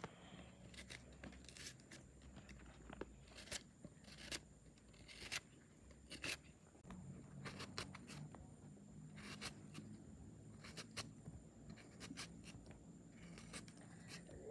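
Knife cutting through crisp green starfruit, slicing it by hand: a short, sharp click with each cut, at an uneven pace of about one cut a second.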